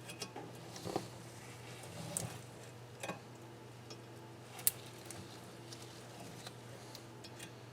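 Faint scattered light metal clicks and taps from fitting small steel valve keepers into a compressed valve-spring retainer on a cylinder head. One sharper click comes a little past halfway.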